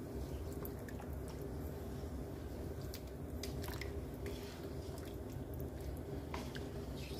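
Wooden-handled spatula stirring meat stock and milk in a non-stick pan: soft sloshing of the liquid with scattered light scrapes and ticks against the pan, over a steady low hum.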